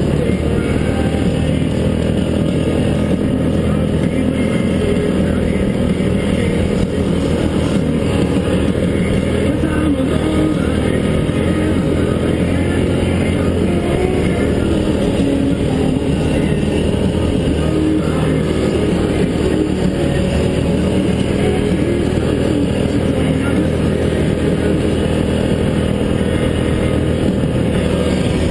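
Yamaha Grizzly 700 ATV's single-cylinder four-stroke engine running steadily under way on a trail, its level even throughout.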